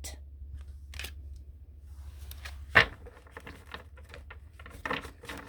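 Tarot cards being handled and shuffled: scattered light taps and flicks, with a sharper tap about three seconds in and a quick cluster of taps near the end, over a low steady hum.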